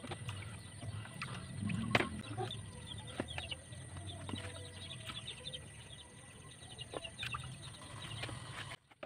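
Light knocks and clatter of cut fish pieces and plastic bowls and food containers being handled, with animal calls in the background. Everything drops away abruptly near the end.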